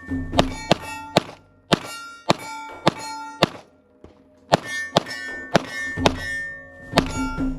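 A string of about a dozen 9mm pistol shots from a Sig P320, roughly two a second with a short pause midway, each followed by the ringing clang of a struck steel target.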